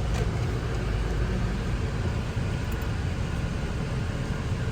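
Steady road and engine rumble heard inside a car's cabin as it drives slowly.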